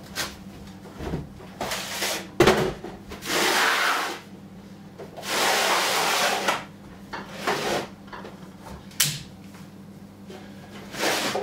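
Knocks and bumps against the kitchen fittings and appliance tops as a person climbs up to a high shelf and back down. Between them come several long scraping rubs, each about a second long.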